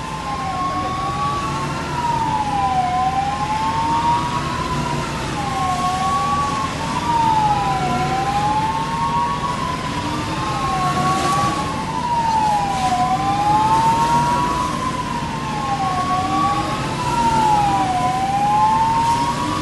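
Two emergency vehicle sirens wailing at once, each sweeping slowly up and down in pitch every few seconds, over a steady low hum.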